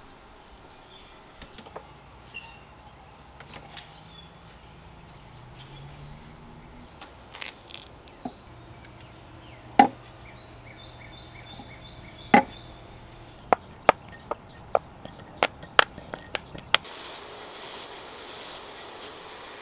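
Scattered hard knocks and taps from work on a wooden chair, the loudest about ten and twelve seconds in, then a quick run of about ten sharp taps. With a few seconds left, a bench grinder's wire wheel starts and runs with a steady hiss as old steel screws are held against it to clean them.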